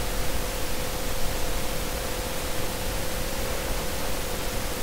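Steady background hiss with a faint steady tone underneath, no events: the recording's noise floor between spoken lines.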